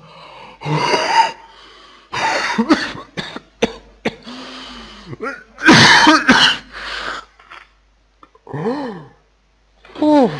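A man coughing hard in several harsh fits, the loudest about six seconds in, then two short pained cries near the end: his throat is burning from very hot chili sauce.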